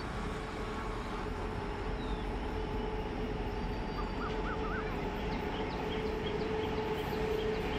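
WAG-9 electric locomotive hauling a goods train, approaching from a distance: a steady rumble with a level hum that slowly grows louder. A few birds chirp briefly about halfway through.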